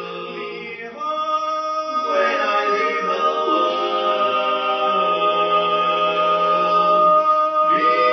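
A small group of men singing a cappella in close harmony, holding long chords that shift about a second in, again a second later, and near the end; it gets louder about a second in.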